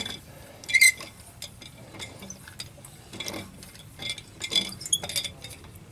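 Metal wrench and socket clinking and scraping against the wheel's lug nuts as they are snugged up by hand. The clinks come irregularly, the loudest about a second in.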